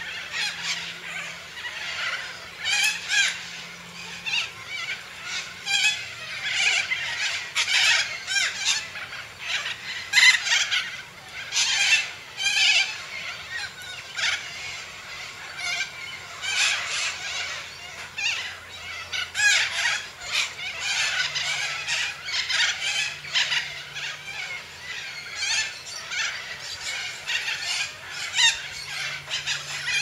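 Cockatoo calling: harsh, rasping calls repeated in quick runs with only short gaps between them.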